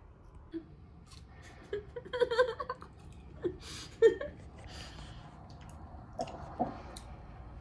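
A person eating fruit: quiet chewing and mouth sounds with scattered small clicks, and a short murmur of voice about two seconds in.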